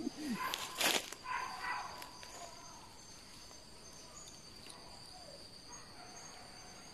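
Steady high-pitched drone of forest insects, with short faint chirps now and then. A brief rustle and faint voices come in the first two seconds.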